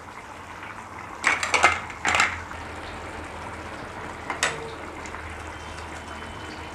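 Metal kitchenware clattering against a cooking pan: two loud clattering bursts a little over a second in and about a second later, then a single lighter clink about four seconds in, over a steady low background.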